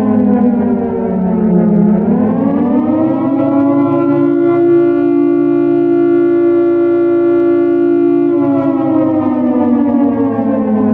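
Air raid siren, pitched down, wailing. It falls at the start, rises about two seconds in, holds a steady note for several seconds, then falls again near the end.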